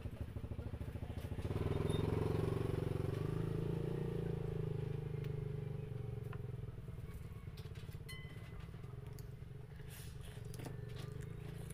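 A small engine running steadily with an even pulse. It grows louder about a second and a half in and eases off a little after about six seconds. A few faint clicks come near the end.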